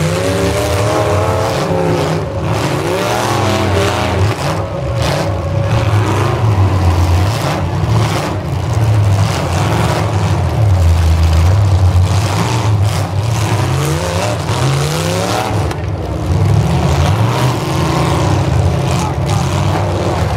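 Several demolition derby cars' engines revving hard and falling back again and again as they shove and ram one another, with scattered short crunching hits.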